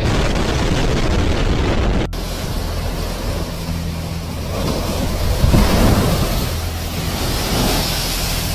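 Heavy storm surf crashing and surging, with strong wind buffeting the microphone. The sound cuts out for an instant about two seconds in.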